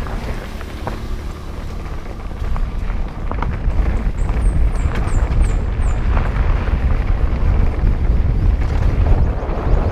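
Mountain bike descending a gravel and dirt trail, heard on a bike-mounted camera: wind rumbling on the microphone with tyres rolling over loose stones and the bike rattling and clicking over bumps, getting louder from about four seconds in. A short run of high chirps comes near the middle.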